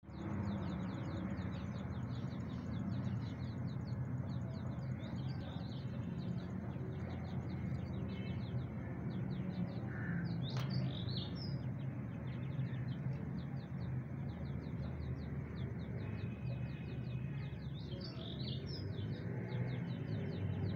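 Grey francolin chicks peeping: fast, high chirps repeating throughout, with louder clusters of calls about halfway through and again near the end, over a steady low hum.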